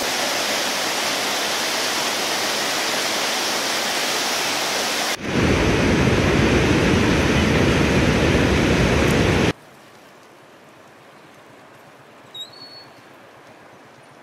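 Floodwater of the Kaveri released from the Krishnaraja Sagar dam at 120,000 cusecs: a steady roar of rushing white water, louder and deeper from about five seconds in. About nine and a half seconds in it cuts off suddenly to the much quieter rush of the wide, swollen river, with one short high chirp near the end.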